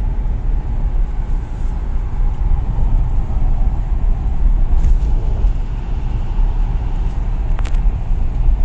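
Steady road and wind noise inside the cabin of a Mahindra Scorpio-N cruising at highway speed: a dense low rumble with a thinner hiss above it. The occupants take it for tyre noise and wind noise around the not-very-aerodynamic body, sounding as if a window were left open. Two faint ticks come through, one near the middle and one near the end.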